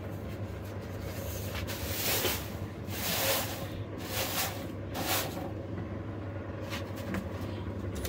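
Electric fan on a stove's chimney pipe running with a steady low hum, with a few short rustling, clattering noises about two, three, four and five seconds in.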